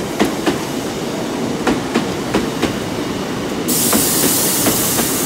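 Two coupled Class 150 Sprinter diesel multiple units running into the station, their wheels clicking irregularly over rail joints and pointwork. A steady high hiss starts suddenly about three and a half seconds in.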